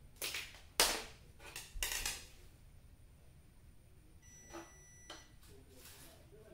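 A few short knocks and scrapes of cables and connectors being handled on a tile floor and at a CRT TV chassis, the loudest about a second in, with fainter ones later.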